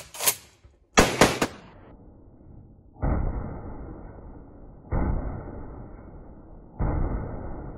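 .50 BMG rifle firing three heavy shots about two seconds apart, each followed by a long fading echo. A few sharp cracks come about a second in.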